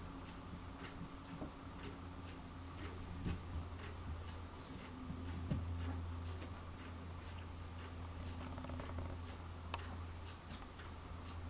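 Two cats play-fighting on carpet: soft scuffling with a few dull thumps, over a steady low hum and a faint, even ticking about twice a second.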